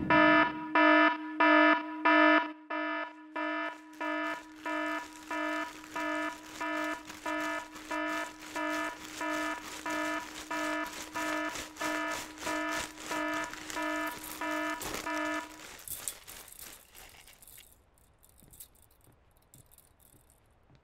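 An electronic alarm beeping in an even rhythm, about two beeps a second. The first four beeps are loud and the rest softer. The beeping stops at about fifteen seconds, leaving faint noise.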